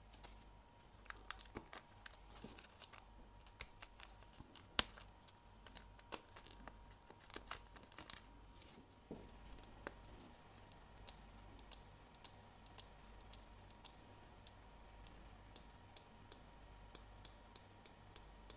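Small metal watchmaking tools clicking and tapping against the parts of a Citizen 8200 watch movement as it is taken apart: light, irregular clicks with one sharper click about five seconds in, then a run of crisp, high clicks about once or twice a second through the second half.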